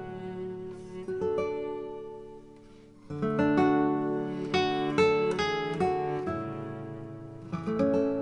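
Background music of an acoustic guitar playing, plucked notes ringing and fading; it dips quieter just before three seconds in, then a new phrase of notes begins.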